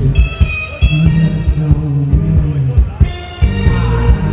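Live rock band playing loud: a heavy bass line and steady drum hits, electric guitar, and the singer's voice into the microphone, with held high notes near the start and again about three seconds in.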